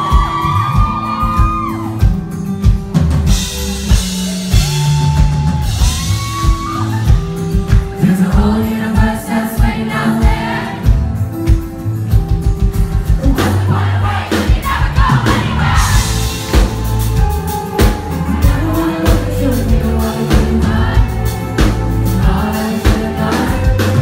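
Live pop-rock band playing loud, a male lead vocalist singing over acoustic and electric guitars, bass and a drum kit keeping a steady beat.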